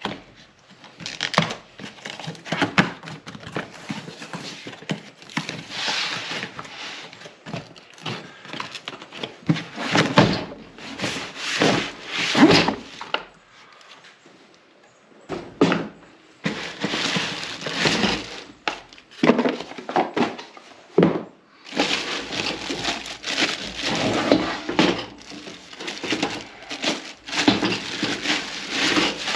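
Unpacking a boxed camp stove: cardboard flaps and packing pieces rustling and scraping, the box and stove thunking on a wooden table, and a plastic bag crinkling as it is pulled off. The handling noises come in irregular bursts, with a short lull about halfway through.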